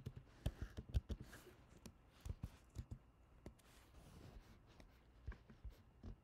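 Computer keyboard keys tapped in short, irregular bursts, thinning out to a few single clicks.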